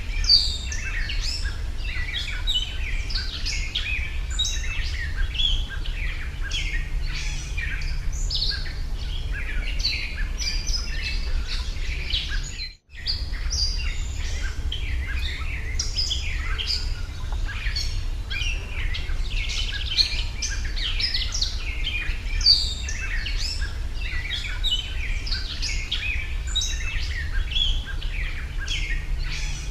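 Many small birds chirping at once, a dense overlapping chorus of short chirps, over a steady low rumble. The sound cuts out for a moment about 13 seconds in.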